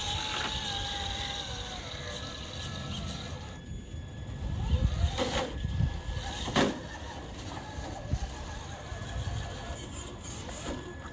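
Traxxas TRX-4 Sport RC crawler's electric motor and drivetrain whining steadily as the truck crawls up a wooden plank ramp. Two sharp knocks come about a second apart near the middle, as it goes over the rocks at the top.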